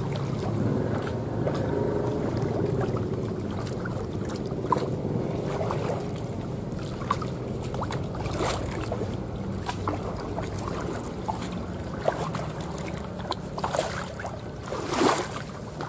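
Shallow river water splashing and sloshing as someone wades through it, with scattered short splashes; the biggest comes near the end.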